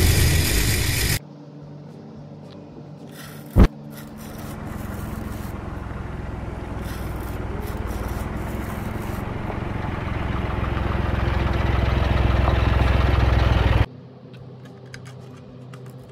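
Engine-like running sound that builds slowly over about ten seconds and then cuts off suddenly, with plastic scraping and handling noise. It opens with a louder sound that stops abruptly about a second in, and a short sharp tone sounds about three and a half seconds in.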